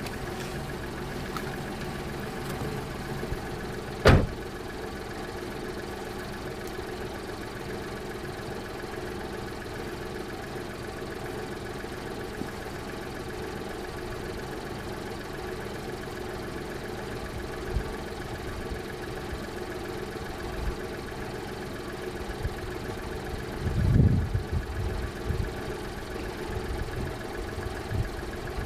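Car engine idling steadily. A car door shuts with one sharp bang about four seconds in, and a few low thumps come near the end.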